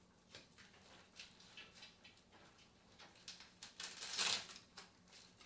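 Faint rustling and small clicks of power-supply cables being handled and pressed into place in a PC case, with a short scratchy rasp about four seconds in as a Velcro cable strap is fastened.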